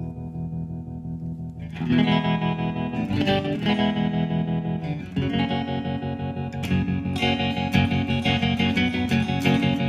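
Electric guitar played through a Booshy Box Tremolo, a Colorsound-style tremolo pedal that is switched on, so the chords pulse in volume at a steady rate. A held chord pulses first, new chords are strummed about two seconds in and again around five seconds in, and the playing grows busier in the second half.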